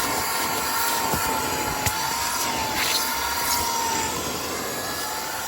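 Cordless Hoover portable spot cleaner running, its suction motor drawing water and dirt out of a cloth car seat with a steady rushing whoosh. A thin, slightly wavering whine rides on it and drops out about four seconds in, and the noise eases off near the end.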